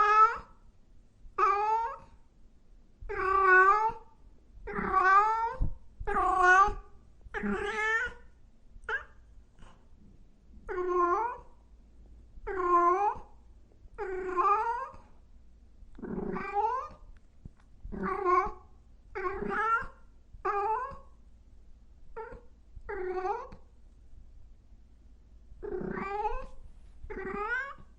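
A cat meowing over and over, short rising-and-falling calls about one a second, with a pause of about two seconds near the end.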